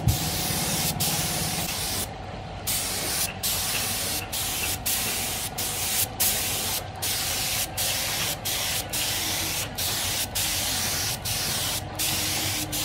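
Spray gun hissing in short bursts, broken by brief pauses every second or so, misting a finish coat onto a carved wooden figure.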